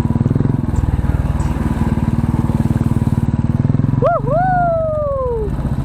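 Motorcycle engine running steadily under way, a fast even pulse of firing strokes. About four seconds in, a person gives a drawn-out call that dips and then slowly falls in pitch.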